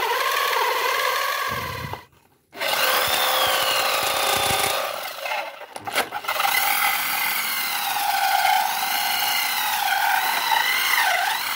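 Electric drill driving a large Bison hole saw into hard wood: the motor whines and the saw teeth grind, the pitch wavering up and down as the cut loads the drill. It stops briefly about two seconds in, starts again, and dips once more around six seconds in. The cut is slow because the wood is hard.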